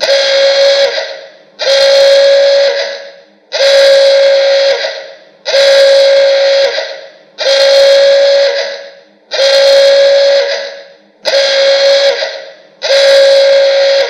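Alarm sound effect: a single steady horn-like tone sounding in eight blasts, each about a second and a half long, repeating roughly every two seconds.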